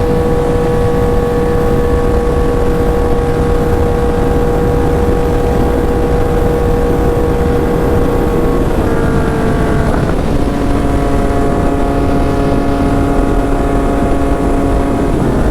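Yamaha MT-09's three-cylinder engine running at a steady cruise with a broad rush of wind and road noise underneath. The engine note holds steady, drops slightly in pitch about nine seconds in, and settles at a lower pitch from about ten seconds in.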